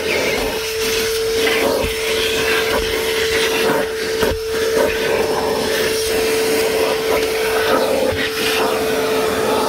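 DeWalt 9-gallon, 5 hp wet/dry shop vacuum running, a steady motor whine over the rush of air, which keeps changing as the nozzle is worked about.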